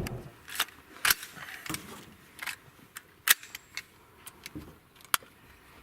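Several sharp clicks and light knocks, irregularly spaced, with quiet in between; the loudest comes a little after three seconds in.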